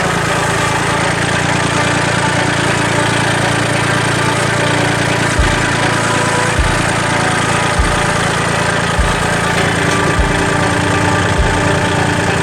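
Tractor engine idling steadily, with a short low thump about every second and a quarter from about five seconds in.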